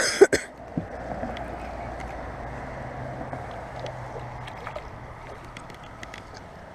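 Steady running noise of a fishing boat on the water, with a couple of sharp knocks in the first half second.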